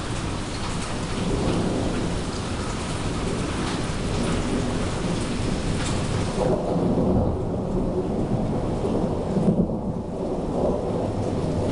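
Thunder rumbling long and low over steady rain. It swells through the middle and peaks near the end, and the hiss of the rain falls away sharply about six seconds in while the rumble goes on.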